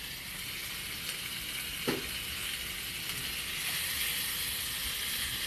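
Cubed steak sizzling on a hot, oiled flat-top griddle of a gas grill: a steady frying hiss that grows a little louder after about three and a half seconds.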